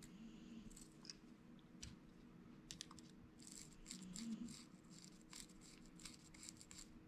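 Faint small clicks and ticks of a screwdriver and fingers working the metal parts of a Penn 430SS spinning reel, growing busier about halfway through, over a faint steady hum.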